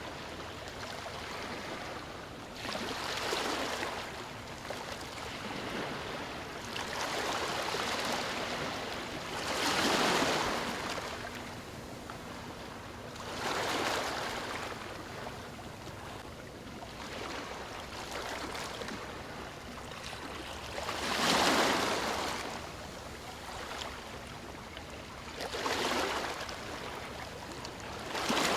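Small waves breaking and washing up a sandy beach, each surge rising to a hiss and ebbing, about every three to four seconds.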